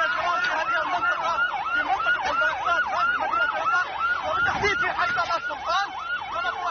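Emergency vehicle siren sounding in a fast yelp, its pitch sweeping up and down about three or four times a second.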